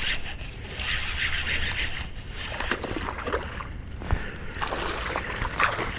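A hooked bass being fought and reeled in: water sloshing and splashing with fishing-reel noise and a few short clicks, one sharper click about four seconds in.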